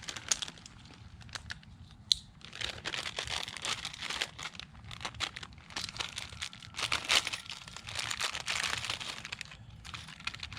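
Crinkling and rustling handling noise with many small irregular clicks and one sharp click about two seconds in, as hands work with pinch clamps, tools and plastic pipe.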